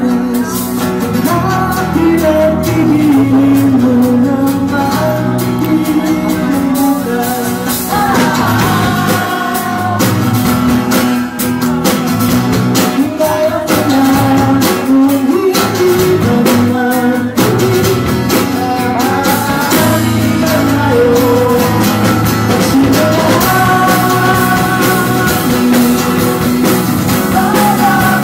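Live acoustic band music: a man singing while strumming an acoustic guitar, with an electric bass guitar playing underneath.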